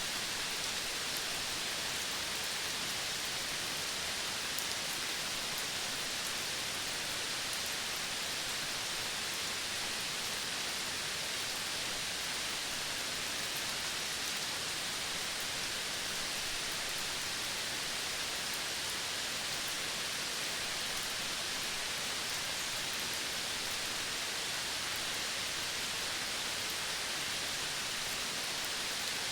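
Steady outdoor nature ambience: an even, unbroken hiss with a thin high band above it, with no distinct calls or events standing out.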